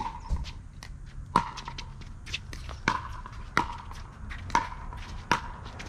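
Pickleball rally: paddles striking the hard plastic ball back and forth, six sharp pocks in quick succession, each with a short ringing tone, and fainter ticks in between.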